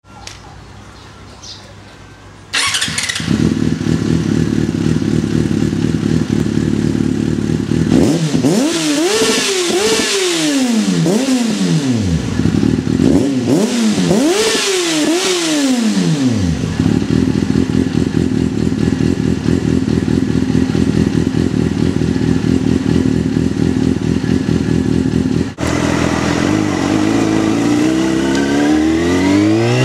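Yamaha FZ6's 600 cc inline-four through an Arrow cat-replacement tube and slip-on silencers: the engine fires up about two and a half seconds in and settles into a steady idle. It is blipped in two bursts of quick revs that rise and fall, then idles again. Near the end the bike is ridden, the engine note rising as it accelerates.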